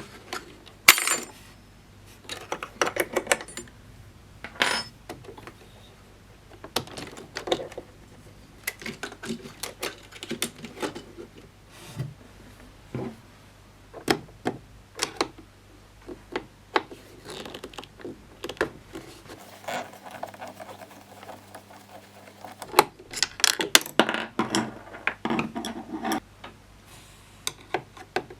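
Hand work on a Jura Z5 espresso machine being taken apart: irregular clicks, clinks and light knocks of tools, screws and metal and plastic parts being handled, with a busier cluster near the end.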